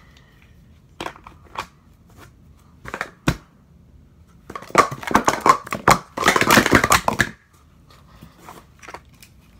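Plastic Speed Stacks sport-stacking cups clacking on a stack mat. A few single clicks come first. About halfway through there is a dense run of fast clacks lasting about three seconds as the cups are stacked up and down at speed.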